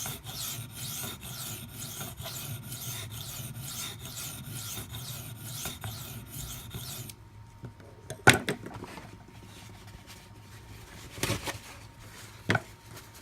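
Maxamet steel knife blade being ground back and forth on a coarse 400-grit CBN sharpening stone in quick, even rasping strokes, working out a chip in the edge. The stroking stops about seven seconds in, followed by three sharp knocks, the first the loudest.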